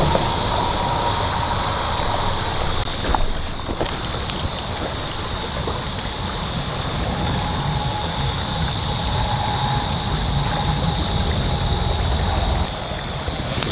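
Wind buffeting the microphone in a steady low rumble beside a small twig campfire, with a few sharp crackles from the fire. The rumble eases near the end.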